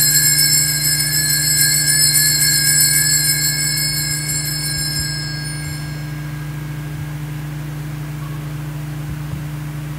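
Altar bells shaken at the elevation of the host after the consecration: a bright, shimmering jingle of small bells that rings and dies away about six seconds in, over a steady low hum.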